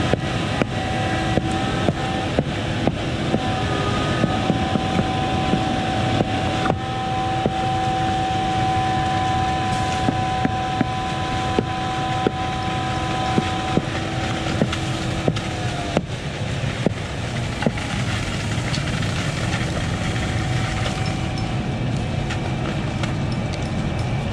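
Concrete boom pump truck and ready-mix truck running under load while concrete is pumped, a steady diesel drone with a whine that cuts off about 16 seconds in and short sharp knocks recurring throughout.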